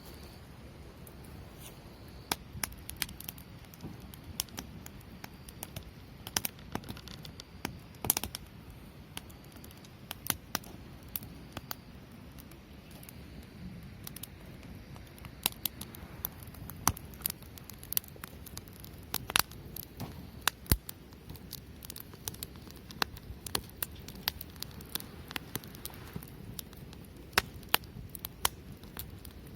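Wood campfire crackling: a steady low hiss of burning with many irregular sharp pops and snaps.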